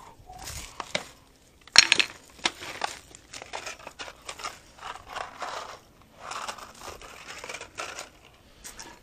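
Tools being rummaged through in a technician's tool bag: irregular rustling and clinking, with one sharp clank about two seconds in.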